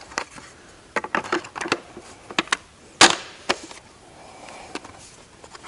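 Sharp clicks and knocks of a conveyor's feed-end cover cap and side-plate parts being handled and pressed into place on the conveyor frame: a string of light taps, then one sharp knock about three seconds in.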